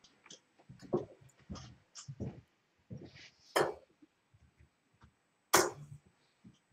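Steel-tip darts thudding into a bristle dartboard: two loud, sharp thuds about two seconds apart, after softer knocks and clicks in the first half.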